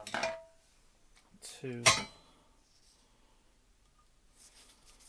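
A short mumble and a sharp metallic clack about two seconds in. Then faint metal ticking near the end as a driver turns a small Loctited threaded fitting into an aluminium crankcase.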